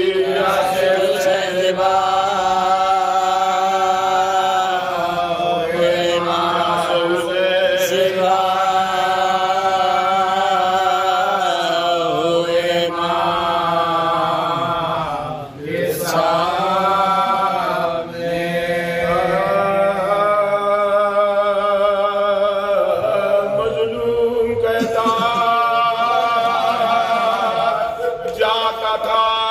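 A man chanting a Shia mourning elegy solo, in long drawn-out notes with a wavering pitch. He pauses briefly for breath about halfway through.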